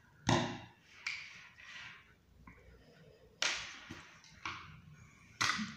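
Sheathed knife being handled and set down on a wooden tabletop: about five separate sharp taps and clicks of the knife and its hard sheath, each fading quickly.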